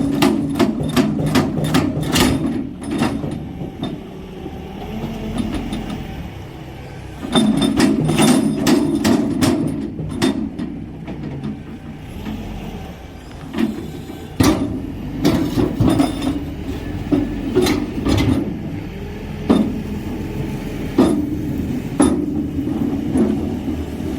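An engine running steadily under clusters of rapid sharp knocks and clanks, with single knocks scattered between the clusters.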